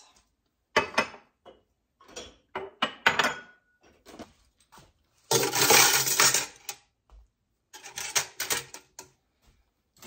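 Dishes, glasses and mugs clinking as they are set down one after another, with a long, loud clatter of steel cutlery dropped into a metal bucket about five seconds in.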